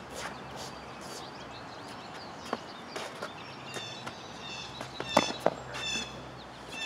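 Practice longswords knocking together as two fencers spar, with a few sharp knocks: a small one about halfway through and the loudest two just after five seconds in, amid footsteps on the court. Birds chirp in the background.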